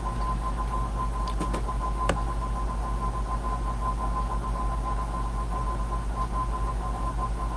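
Steady recording noise: a low electrical hum and hiss with a thin steady high tone, and a few faint clicks about a second and a half to two seconds in.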